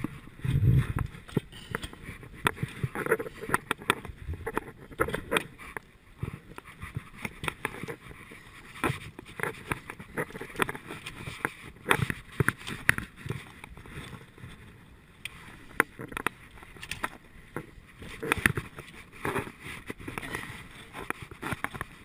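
Irregular clatter, knocks and scuffs of a full-suspension mountain bike being handled over loose rocky ground, with a heavier thump in the first second.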